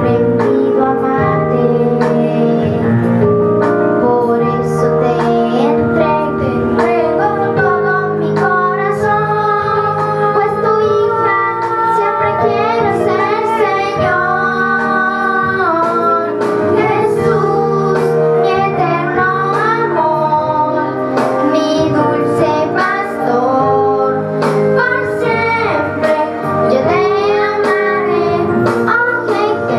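Children singing through microphones over a backing music track. It is mainly a girl's voice, with a boy singing alongside her, and the melody is held over sustained accompaniment chords.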